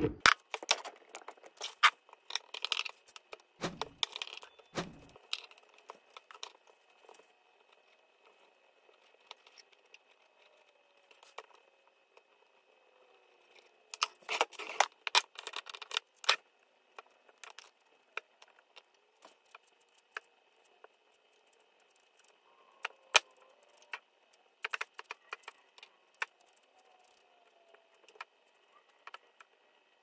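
Knife cutting and scraping aloe vera leaves over a bowl: irregular clicks, taps and scrapes, in dense clusters in the first few seconds and again about halfway through.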